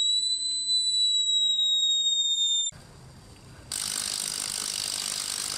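Homemade factory-style siren holding a steady high wail at the top of its wind-up, then cutting off suddenly about two and a half seconds in. A steady hiss follows for the last couple of seconds.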